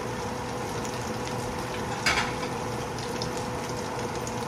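Breaded pork chops frying in shallow oil in a skillet: steady sizzling and crackling, with one louder pop about two seconds in.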